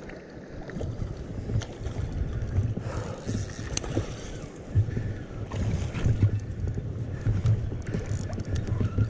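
Wind noise on the microphone beside a flowing river, with scattered light clicks and knocks from hands working a spinning rod and reel.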